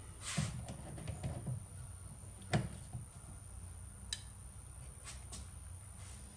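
Scattered knocks and clicks of objects being handled over a steady low hum. The loudest is a sharp knock about two and a half seconds in, with a few lighter clicks after it.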